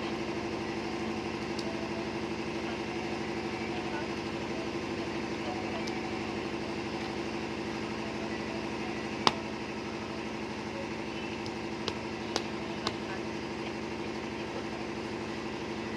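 A steady mechanical hum, like a motor running, with one sharp click about nine seconds in and a few fainter clicks a few seconds later.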